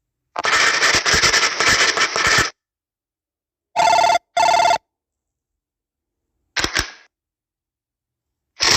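A series of separate office sound effects: first a dense burst of rapid clicking and rustling lasting about two seconds, then a telephone ringing as a quick double ring, then two sharp clicks of a stapler, and a brief clack near the end.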